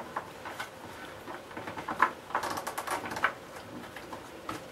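Light clicks, taps and scraping of hands working the mains cable and plastic casing of a vintage Hoover Junior upright vacuum cleaner, with a quick run of small ticks about two and a half seconds in.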